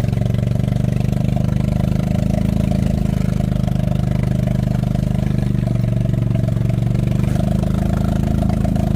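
A small vehicle's engine running close by at a steady speed.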